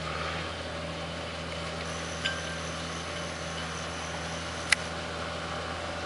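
Engine of a horizontal directional drilling rig running steadily while it pulls plastic geothermal loop pipe back underground. There is a sharp click a little over two seconds in and another near five seconds.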